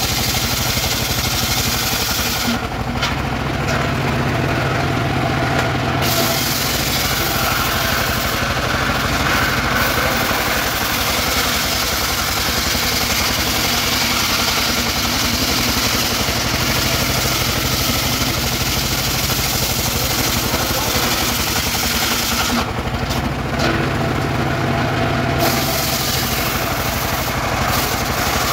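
Engine of a mobile circular sawmill running steadily while the circular saw blade rips lengthwise through a weru log, with a hissing cutting noise over the engine. The cutting noise eases twice briefly, a few seconds in and again about 23 seconds in.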